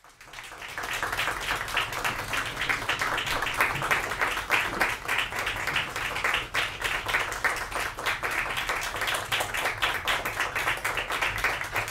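Audience applauding steadily, swelling up from silence over about the first second.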